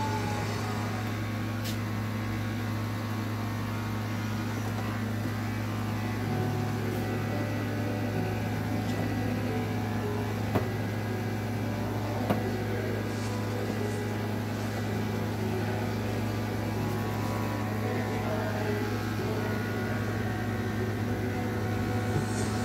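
Corded electric dog grooming clippers running with a steady low buzz as they trim a dog's coat, with two light clicks about halfway through.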